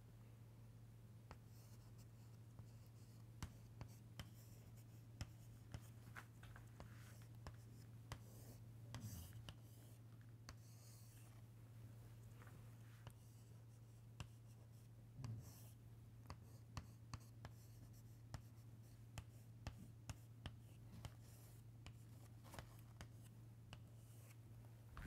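Chalk on a chalkboard drawing diagram boxes and lines: faint sharp taps and short scratchy strokes, over a steady low hum.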